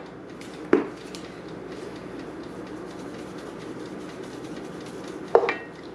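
Onion, spices and flour roux cooking gently in a stainless sauté pan on an induction hob, a steady sizzle with a low hum under it. Two short sharp knocks break it, one about a second in and one near the end.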